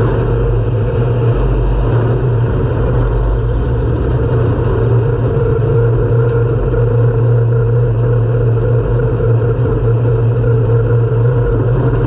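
Pure Stock dirt race car's engine running steadily at low, even revs, heard from inside the car's cockpit.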